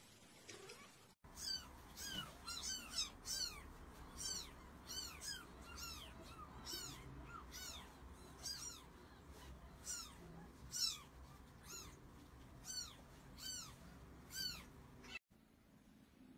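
Kittens mewing over and over: short, high calls that rise and fall in pitch, about two a second. They start about a second in and stop abruptly near the end.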